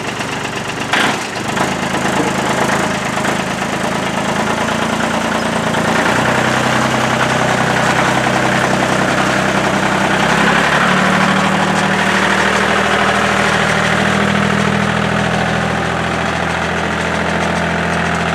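Engine idling steadily, with a sharp click about a second in and its tone shifting a couple of times.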